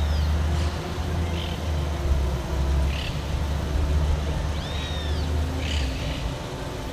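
Outdoor ambience: a steady low rumble that stops about six seconds in, with a handful of short, high bird calls over it.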